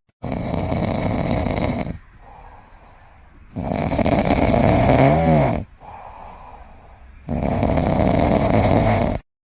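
Loud snoring: three long snores about three and a half seconds apart, with quieter breaths between, cut off suddenly near the end.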